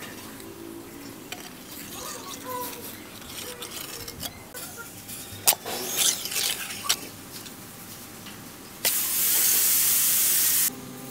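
Small handling clicks and knocks, then a loud steady spraying hiss lasting about two seconds near the end that cuts off suddenly.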